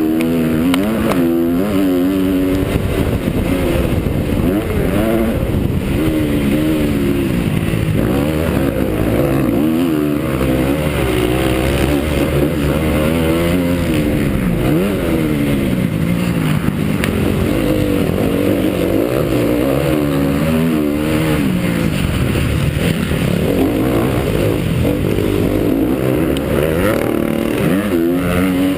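Honda CRF250 four-stroke motocross bike's engine under racing load, revving up and dropping back over and over as the rider works the throttle and gears.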